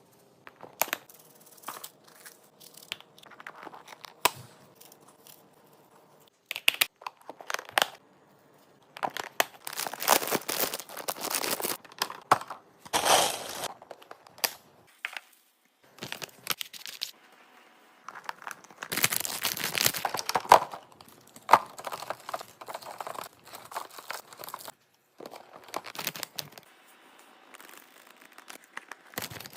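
Crinkling, rustling and tearing of packaging as kitchen items are handled, in several stretches of a second or two, with scattered clicks and knocks between them.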